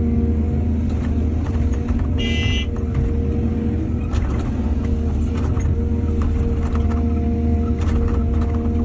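Excavator diesel engine running steadily under load, with scattered knocks and a brief high squeal about two seconds in.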